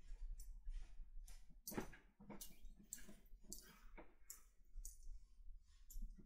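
Faint, irregular small clicks and rustles of close handling and movement, over a steady low hum.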